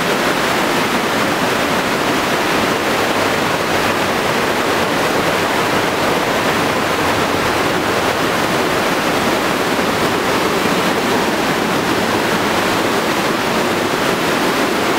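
Mountain river torrent rushing through a narrow rock gorge: a loud, steady wash of white water.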